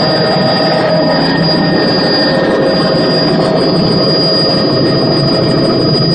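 Helicopter's turbine engine and rotor running steadily: a loud, even noise with a constant high-pitched whine.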